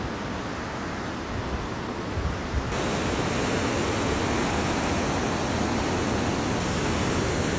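Mountain stream water rushing over rocks, a steady rush that turns abruptly louder and brighter about three seconds in.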